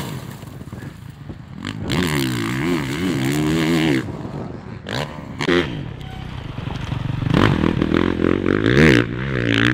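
Motocross bike engine revving up and down as the bike is ridden, its pitch rising and falling again and again, with a few brief knocks; it runs louder in the last few seconds.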